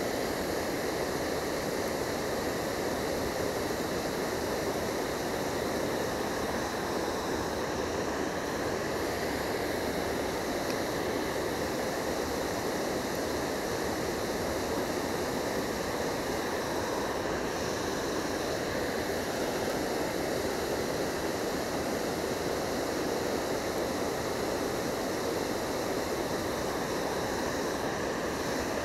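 Water spilling over a low concrete weir: a steady, even rushing.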